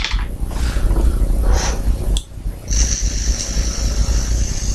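Someone vaping on an Innokin iTaste MVP 3 with a dripping atomizer, over a constant low rumble. Breathy exhales, then a click followed by a steady high hiss for about two seconds as vapour is drawn, ending with another click.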